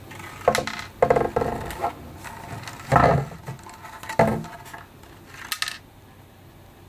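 A hard plastic 3D-printed figure being handled and turned over on a desk, giving several sharp knocks and scrapes.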